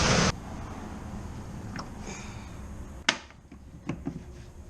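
A steady rush of air blowing through the kayak hull stops abruptly about a third of a second in. Then come faint handling clicks and knocks, with one sharp click about three seconds in.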